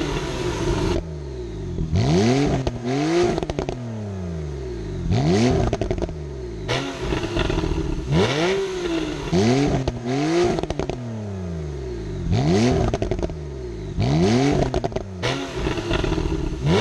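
Porsche 911 991.2 Targa 4S twin-turbo flat-six with the sport exhaust open, revved again and again: the pitch climbs and drops back about every second or two. Sharp crackles and pops from the exhaust come off the throttle between the revs, the afterburn typical of this turbocharged 911 in sport mode.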